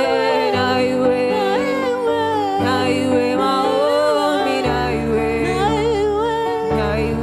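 Gospel worship song: a solo voice singing a wavering, ornamented melody over held low chords that change about every two seconds.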